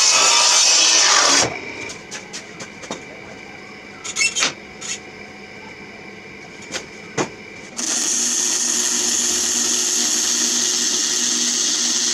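Miter saw cutting through a treated 2x6, its pitch falling before it stops about a second and a half in. A few clicks and knocks follow, then a MIG welder's arc gives a steady hiss from about eight seconds in.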